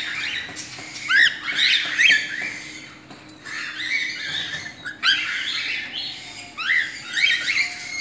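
Cockatiels calling: clusters of short, sharp chirps and squawks that sweep up and down in pitch, repeating every second or so.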